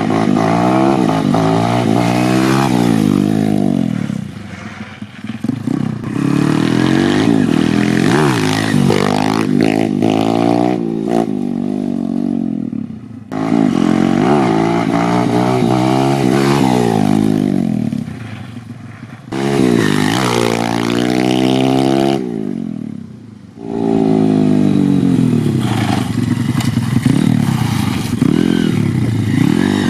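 YCF150 Classic pit bike's 150cc single-cylinder four-stroke engine on a new Nibbi 24mm carburetor, revving up and down repeatedly as it is ridden. The pitch climbs and falls over and over, and the engine drops away briefly several times when the throttle closes. It runs pretty good on the new carburetor.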